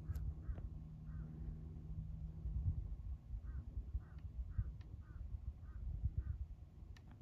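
A low rumble of wind on the microphone, with a bird giving short calls in small runs, about two a second, a few times.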